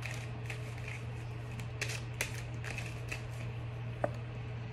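An oracle card deck being shuffled by hand, the cards passed from one hand to the other with irregular light flicks and slaps, over a steady low hum.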